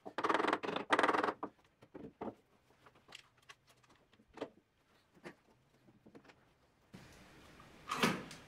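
Mallet blows on the wooden frame of a shoe rack seating its joints, two loud bursts in the first second and a half, followed by scattered clicks and knocks as long bar clamps are handled and set, with a sharper clack about eight seconds in.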